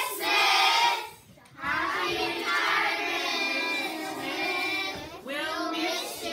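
A class of children singing together in unison, holding long notes, with a short break about a second in.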